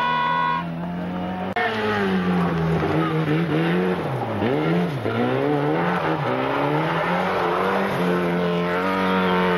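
Rally car engine running at high revs. Its pitch dips sharply and climbs back twice around the middle as the throttle is lifted and gears change. A high steady squeal sounds in the first half-second, and the sound jumps abruptly about a second and a half in.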